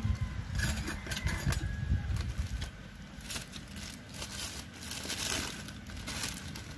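A paper food wrapper crinkling and rustling in the hands as a serving of rice is unwrapped, mixed with crisp crunching of fried chicken being bitten and chewed. The sound is a run of irregular sharp crackles.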